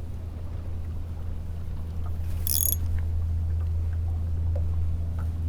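Boat motor running steadily on the river, its low drone growing louder as it nears. A brief high-pitched chirp sounds about halfway through.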